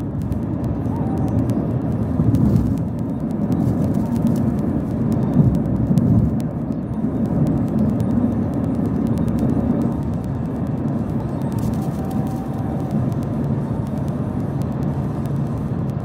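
Steady road and engine rumble inside the cabin of a 2013 Ford Explorer cruising on a highway, with a few faint clicks.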